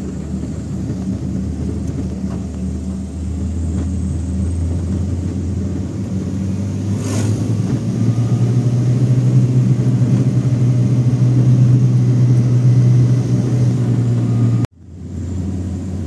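Car engine and road noise while driving; the engine note steps up in pitch about halfway through and holds there. There is a brief knock just before that, and the sound drops out abruptly for a moment near the end.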